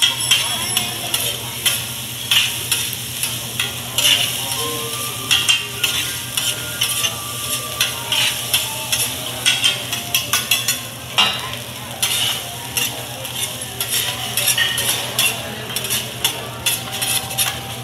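Fried rice sizzling on a teppanyaki flat-top griddle while two metal spatulas scrape and clack against the hot plate in quick, irregular strokes, chopping, turning and gathering the rice.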